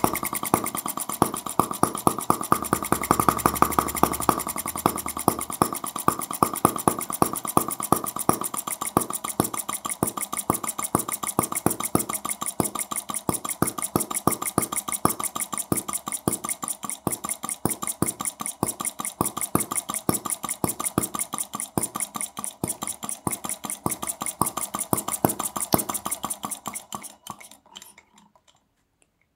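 Brass model of Carl Benz's 1885 single-cylinder engine running with a fast, even stream of sharp firing clicks. Near the end it runs down, fades and stops.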